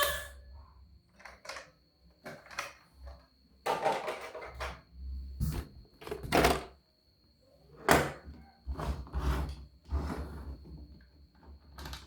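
Irregular knocks, clicks and short scrapes of small objects being handled and set down, in a small room.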